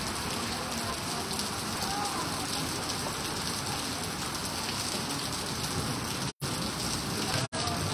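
Heavy rain pouring onto a flooded street, a steady hiss of water striking puddles and wet pavement. The sound cuts out abruptly twice near the end.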